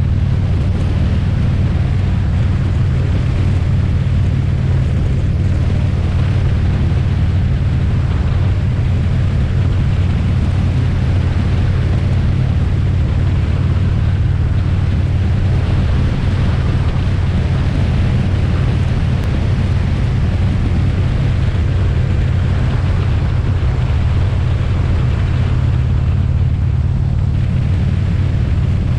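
Motorcycle cruising at steady highway speed: a constant low engine drone under heavy wind rush on the bike-mounted camera's microphone.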